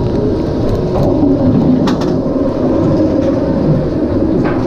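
Steel roller coaster train rolling along its track: a loud, steady rumble of wheels on rail, with a few sharp clicks near the end.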